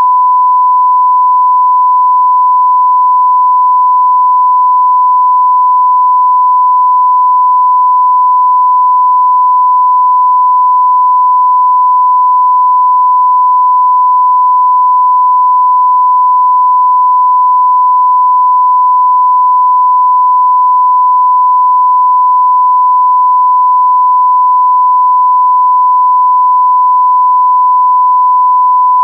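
Censor bleep: a single steady, loud pure tone at about 1 kHz, held without a break.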